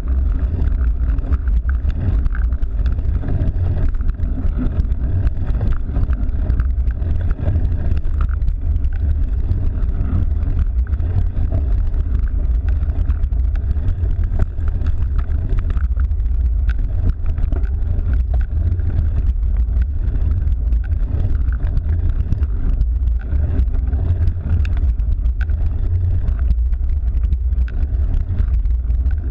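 Steady, heavy wind rumble on the microphone mixed with tyre and road noise from a cyclocross bike being ridden, with scattered small knocks.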